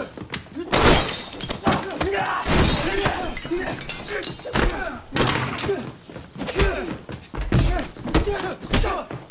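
Movie fight sound effects: a rapid, irregular run of punches, blows and body impacts, mixed with the fighters' short grunts and strained breathing.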